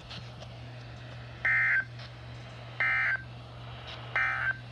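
Emergency Alert System end-of-message signal: three short, identical bursts of SAME digital data tones, about a second and a half apart, marking the end of the alert broadcast. A steady low hum runs underneath.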